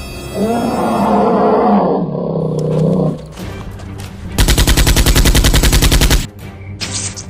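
A creature's roar lasting about three seconds, then a burst of rapid automatic gunfire, about ten shots a second for roughly two seconds.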